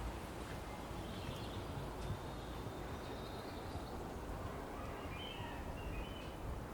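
Outdoor cemetery ambience: a steady low background rumble with a few birds chirping, a short burst of calls about a second in and a cluster of chirps near the end.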